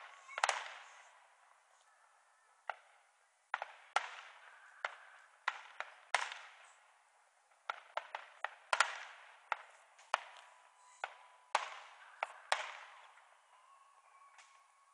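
Fireworks going off in an irregular string of sharp bangs, some in quick clusters, each dying away in a short echo. The cellphone recording leaves the bangs thin, with little low end. A faint steady whistle sounds around the middle and again near the end.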